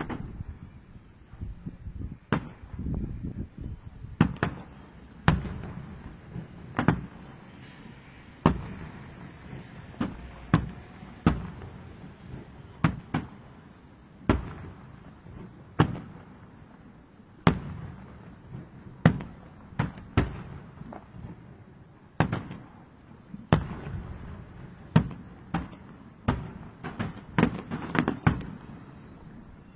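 Aerial firework shells bursting one after another, a sharp bang about every second or two with a low rumble trailing each, the bangs coming faster near the end.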